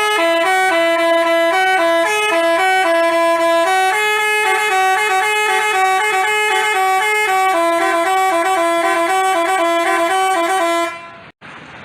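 Bus 'telolet basuri' multi-tone musical air horn playing a tune: a quick run of stepped horn notes that stops abruptly near the end.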